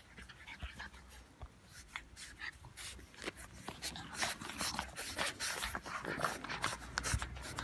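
French Bulldog puppy making a quick, irregular run of short clicks and small squeaks that grows denser and louder a few seconds in.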